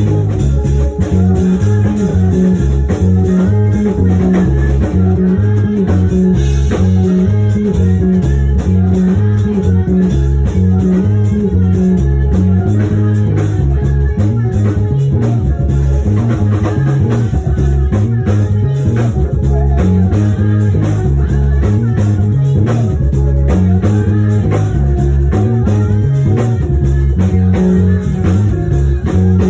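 Instrumental band music, electric bass guitar to the fore with a line of low notes changing every beat or so, over guitar and drum kit.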